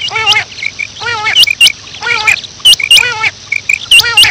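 Female quail (batair) calling: a rising-and-falling call repeated about once a second, mixed with sharp, high, upward-flicking notes and short chirps.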